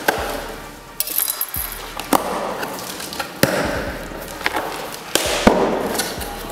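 Cardboard shipping box being opened by hand: the flaps scraping and rustling, with several sharp knocks and clicks.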